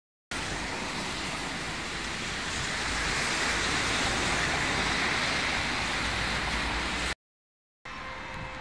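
Tyres hissing on wet cobblestones as a car drives slowly past, a steady noise that swells in the middle. The sound drops out to silence briefly at the start and again near the end.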